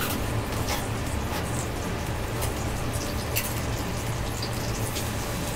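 Bacon frying in a pan: a steady sizzle with scattered small pops and crackles as fresh cream is poured in over it, with a steady low hum underneath.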